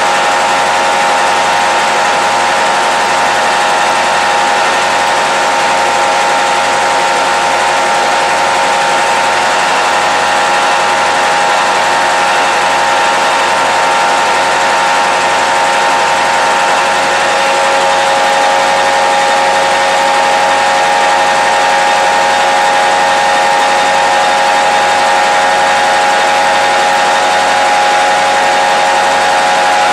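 The V16 two-stroke EMD 567 diesel engine of a Nohab M61 locomotive running steadily under power, heard loud from inside its engine room, with a steady whine over the engine noise.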